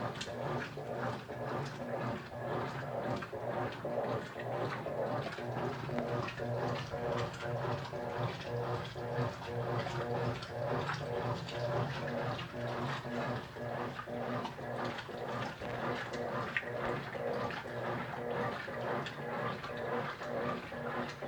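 Consul Facilite 9 kg washing machine in its wash stage: a steady motor hum with water and clothes swishing in an even rhythm, about two strokes a second.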